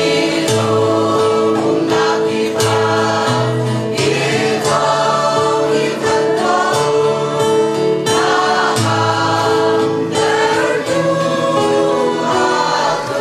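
Mixed church choir, women's and men's voices together, singing a hymn in harmony with long held notes.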